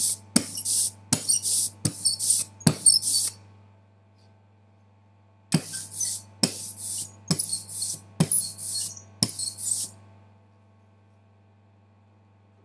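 A hand roller being rolled back and forth through photo-etching emulsion on a glass slab. Each pass gives a click and a short hiss, about two a second, in two runs with a short pause between, stopping about ten seconds in. The sound of the roller tells the printmaker whether it carries too much emulsion.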